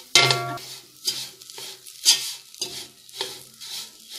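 Slotted spoon scraping and stirring onions and ground spices around a non-stick kadai, about two strokes a second, each stroke with a brief ring from the pan, over a frying sizzle. The spice powders are being roasted in the oil on low heat until their raw smell is gone.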